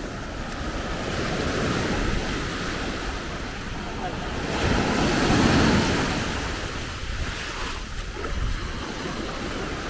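Sea surf washing up the sand and draining back, one wave surging loudest about midway through. Wind buffets the microphone with a low rumble.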